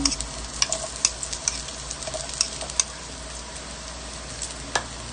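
White onion slices sizzling in hot cooking oil in a wok, a steady frying hiss with a few sharp clicks and pops as the onions are added from the bowl.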